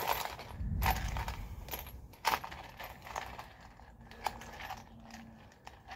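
Small steel fasteners for a suspension pinch bolt (bolt, nut and lock washer) being picked up and handled, clinking against each other and against metal in a string of light, separate clicks.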